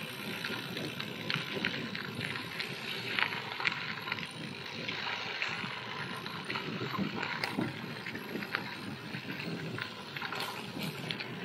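Gravel bike tyres rolling over a loose gravel road: a steady crunching hiss with frequent small clicks of stones.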